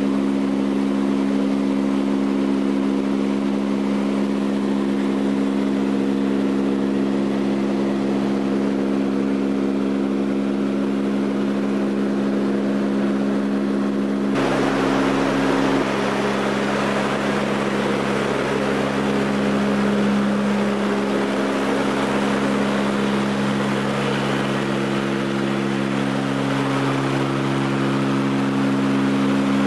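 Lockheed L-188 Electra's Allison turboprop engines and propellers running steadily in flight, heard from inside the aircraft as a hum of several steady low tones over a rush of air. About halfway through, the sound changes abruptly to a louder airflow hiss over much the same propeller hum.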